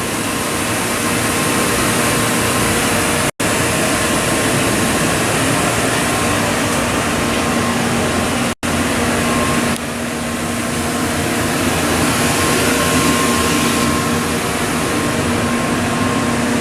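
Industrial blower on top of a CNC gun drilling machine running steadily, a constant rushing hum. The sound breaks off for a moment twice.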